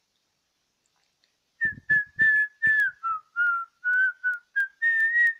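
Someone whistling a short tune: about a dozen short notes, starting about a second and a half in, that dip lower in pitch and climb back up.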